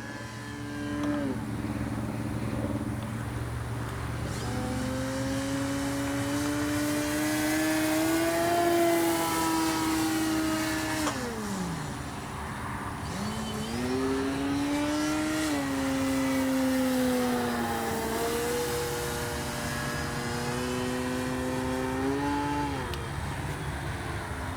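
Electric RC plane's brushless outrunner motor and 13x6.5 propeller whining in flight. The pitch drifts up and down, falls steeply about halfway through, then climbs back, with a smaller dip near the end.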